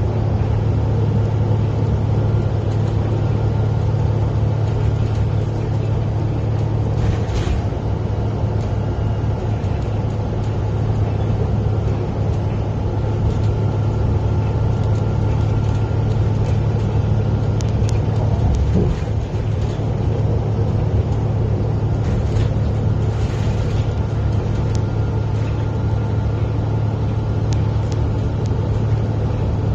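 Steady road noise of a vehicle driving at highway speed, heard from inside the cabin: a deep, even rumble of tyres and engine, with a couple of brief hissing swells as other vehicles pass.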